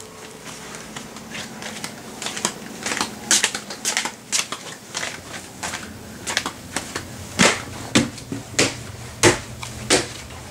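Footsteps on wooden stairs: a run of short sharp knocks, light and irregular at first, then louder and evenly spaced, roughly one every half-second or so, from about seven seconds in, as someone climbs.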